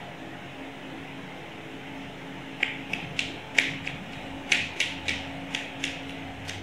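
Massage percussion: hands striking the body in a quick, uneven run of about ten sharp slaps, starting about two and a half seconds in. A steady low hum runs underneath.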